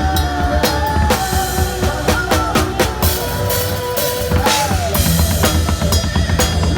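Live band music led by a drum kit: bass drum, snare and cymbal hits keeping a busy beat under a bass line and a wavering melody.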